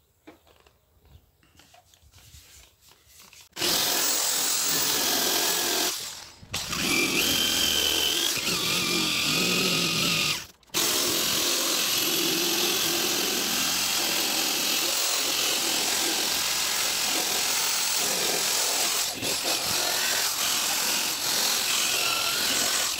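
Power tool spinning a coral abrasive stripping disc against the truck cab's sheet steel, grinding the paint off down to bare metal. It starts about three and a half seconds in, stops briefly twice, around six and ten seconds in, and otherwise runs steadily with a shifting whine.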